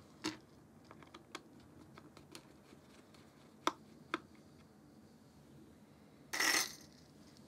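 Scattered light clicks and taps as a Nikon Z50 camera body and a small screwdriver are handled during disassembly, with a brief louder scrape a little over six seconds in.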